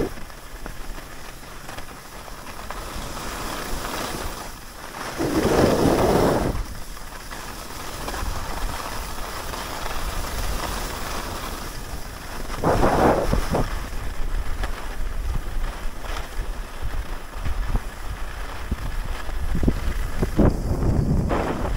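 Wind buffeting the camera microphone while skiing, mixed with the hiss and scrape of skis sliding over packed, groomed snow; the sound swells louder three times, about five, thirteen and twenty seconds in.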